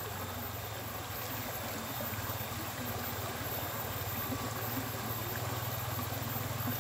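Steady flowing-water sound from a small stream, an even noise with a low steady hum underneath.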